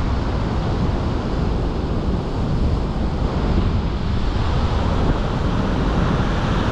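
Wind buffeting the microphone over the steady wash of ocean surf: a continuous rushing noise, heaviest in the low end, with no breaks.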